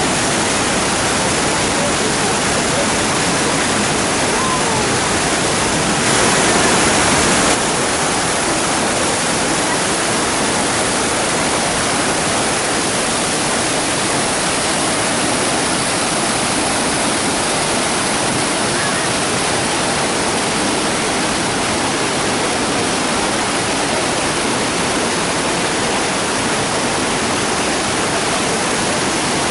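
Waterfall: a loud, steady rush of falling water. About six seconds in it briefly grows louder for a second and a half.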